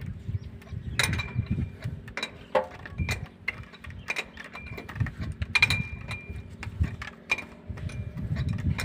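Irregular metal clinks and taps as a flexible corrugated stainless-steel hose's nut is fitted and hand-tightened onto a chrome angle valve, some with a short metallic ring.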